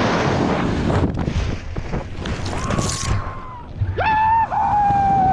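Air rushing over a helmet camera's microphone during a fall through the air. From about halfway in, a person's drawn-out high yells follow, the loudest two near the end, each sagging slightly in pitch.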